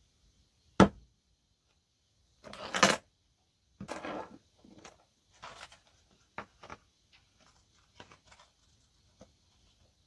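Handling noises on a wooden workbench as a brass lock cylinder, a key tag and a paper card are put down and moved. There is a sharp knock a little under a second in, then a louder scrape and rustle around three seconds. Lighter taps and rustles are scattered after that.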